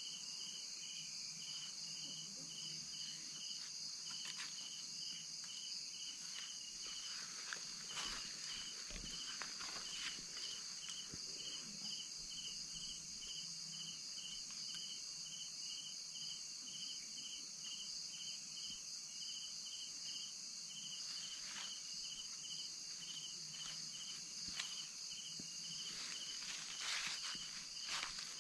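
Night insect chorus: a steady high-pitched drone of insects, with a cricket chirping about twice a second, and occasional short rustles of feet shifting on dry leaf litter.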